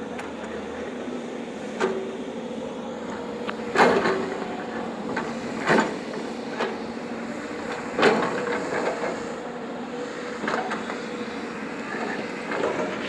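Excavator's diesel engine running steadily, with sharp metallic clanks four times, the loudest about four and eight seconds in.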